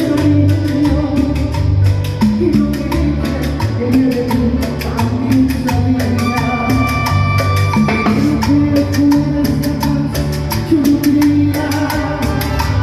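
Live tropical band music, with bass, drums and percussion playing a steady dance beat.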